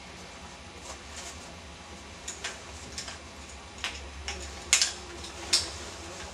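Scattered sharp clicks and taps from handling a furled umbrella and its carrying strap and buckle, the loudest two about five seconds in.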